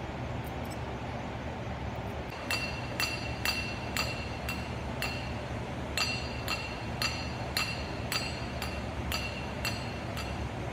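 A knife blade tapping the rim of a small ceramic dish, making short ringing clinks about twice a second, starting a couple of seconds in, over a steady low hum.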